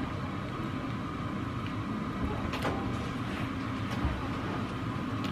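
Steady low rumble of background noise with a faint high hum, and a couple of soft clicks about two and a half seconds in.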